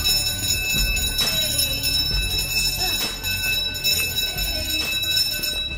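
A school's electric bell ringing loudly in one steady, high-pitched ring that cuts off near the end.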